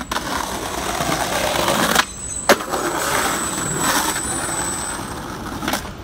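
Skateboard wheels rolling over stone paving slabs, with a sharp clack about two and a half seconds in and a few knocks of the board near the end.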